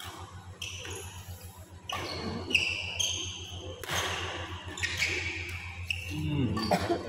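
Badminton rally: sharp racket-on-shuttlecock hits about a second apart, with high squeaks of court shoes on the floor between the shots.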